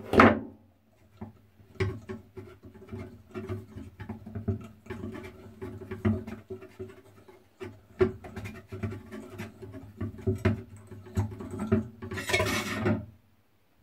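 Steel wire being wound by hand into a tight coil spring around a metal jig bit: a run of small metallic clicks and scrapes, with a louder ringing clink at the start and a longer scraping rush near the end.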